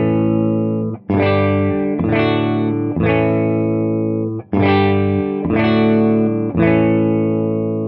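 Electric guitar chords played through a valve amp built on a brown-face Fender Bassman normal-channel circuit. The amp is set with no cathode bypass capacitor on the first gain stage, fixed-bias output and negative feedback on, with the volume turned up for a snappier, slightly cleaner response with a bit more headroom. About seven chords are struck roughly a second apart, each left to ring.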